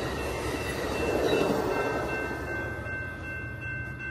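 Passenger train of bilevel coaches rushing past at speed: the rumble and rush of wheels on rail swells about a second in, then fades as the last cars go by.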